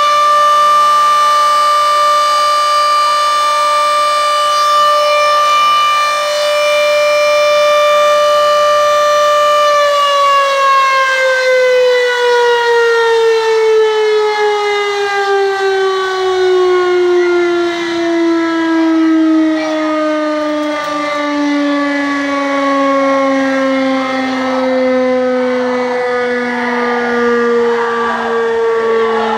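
Volunteer fire brigade siren sounding a loud, steady tone, then, about ten seconds in, slowly winding down in pitch as it runs down.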